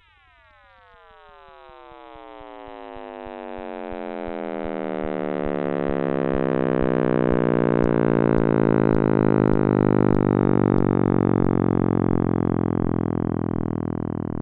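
Electronic synthesized tone made of many pitches that slide downward together, slowing as they settle into a low, dense chord. It swells gradually over about ten seconds and then fades, with faint low ticks beneath.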